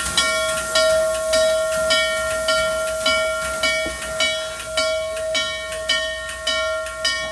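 Norfolk & Western J-class No. 611 steam locomotive standing with steam up: evenly spaced hissing puffs a little under twice a second over a steady high whine.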